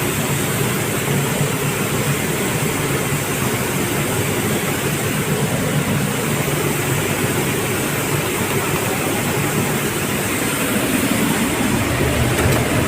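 TD400 hemp seed dehulling and separating plant running steadily: an even mechanical hum with a rushing noise over it, holding level throughout.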